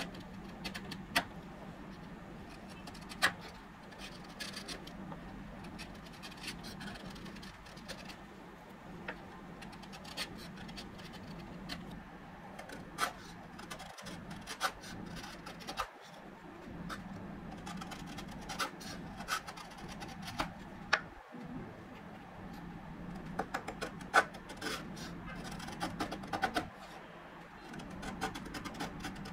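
Bench chisel pared by hand through hardwood: a steady scraping of the blade across the wood, broken by scattered sharp clicks and snaps at irregular times as shavings break away.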